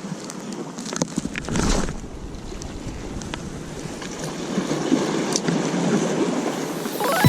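Sea waves washing onto the shore, with wind on the microphone and a few light clicks. A swell rises about one and a half seconds in, and the wash builds again in the last few seconds.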